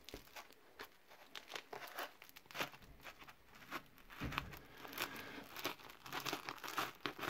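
A folding pocket knife slitting and tearing through the tape and plastic wrapping of a parcel: irregular, fairly quiet crinkles, scrapes and rips of plastic and packing tape.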